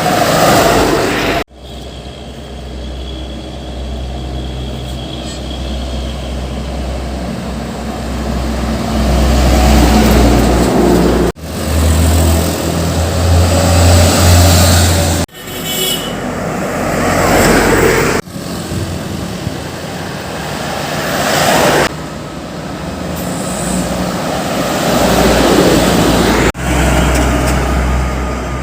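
Heavy diesel trucks running with a strong low engine rumble, in several short takes that cut abruptly from one to the next. The rumble is loudest about twelve to fifteen seconds in.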